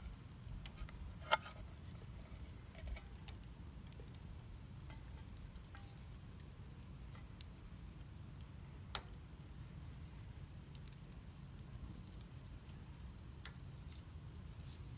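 Wood campfire crackling: irregular sharp pops and ticks over a low steady rumble, with the loudest pops about a second in and again near nine seconds.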